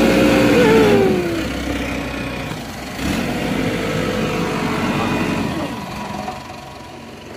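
Snowplow vehicles passing close by one after the other. The first engine is loudest and falls in pitch as it goes past; a second engine comes through a few seconds in and fades toward the end.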